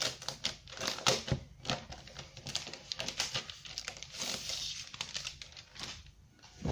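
Rustling and crinkling of a protective wrap being pulled off a new laptop: a run of quick, irregular crackles and scrapes, easing off near the end.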